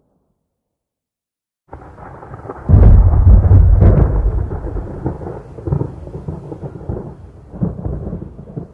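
Thunder sound effect: silence for under two seconds, then a rumble that breaks into a loud, deep clap with sharp crackles and rolls on, fading in uneven swells.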